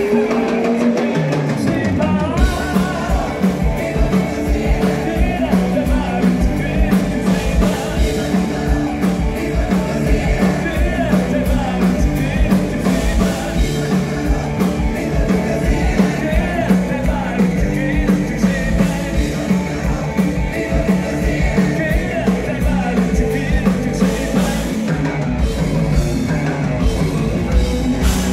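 Live rock band playing a song: a singer over drum kit and guitar, with a steady beat.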